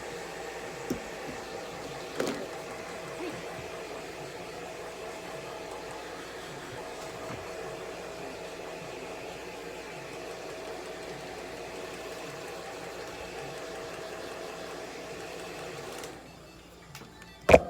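Hair dryer blowing steadily with a whirring hum, switched off about sixteen seconds in, followed by a couple of sharp knocks near the end.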